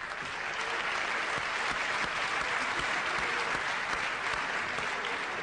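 Studio audience applauding steadily, dense clapping that builds in the first second and eases slightly near the end.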